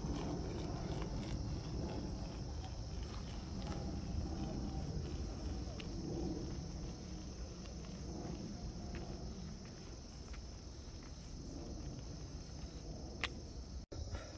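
Steady high-pitched insect chorus over a low rumble, with faint footstep-like knocks.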